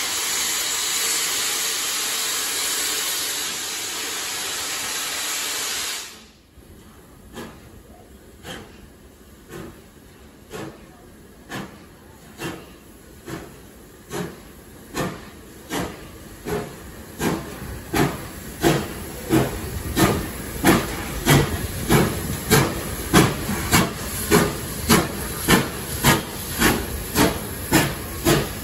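Steam locomotive 3801 starting to work: a loud steady hiss of escaping steam stops abruptly about six seconds in. Then come the locomotive's exhaust beats, slow at first and quickening to about a beat and a half a second, growing steadily louder.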